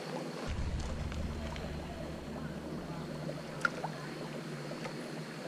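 Shallow stream running over rocks, under a low rumble of wind on the microphone that sets in about half a second in. One sharp tap about three and a half seconds in.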